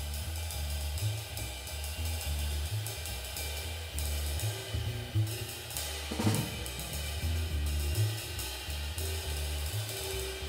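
Jazz drum kit and upright bass playing together: cymbals ring continuously over a line of changing low bass notes. There is a louder drum and cymbal hit about six seconds in.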